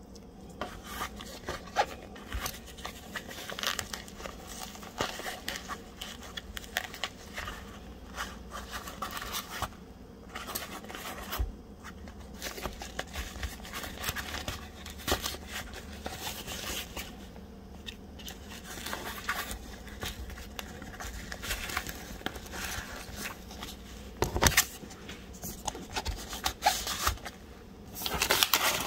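Hands handling small objects and packaging: a steady run of rustling, scraping and small clicks, with one sharp knock about 24 seconds in and busier, louder handling near the end.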